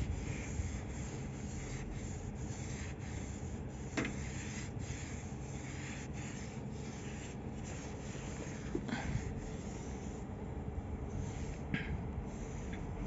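Cloth rag rubbing and wiping a steel flange in short scratchy strokes over a steady low rumble, with a few sharp clicks, the loudest about four seconds in.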